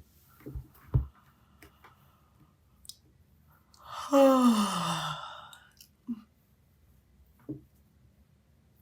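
A woman's yawn about four seconds in: a breathy, voiced sound about a second and a half long that slides down in pitch. A few soft clicks come in the first second.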